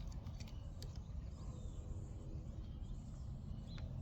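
Quiet background: a steady low rumble with a few faint clicks, and a short chirp near the end.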